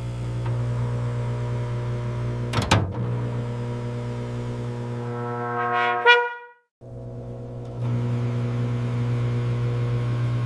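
Microwave oven running with a steady low hum, a sharp click about two and a half seconds in, and a brief rising tone about six seconds in that cuts off abruptly into a moment of silence before the hum resumes.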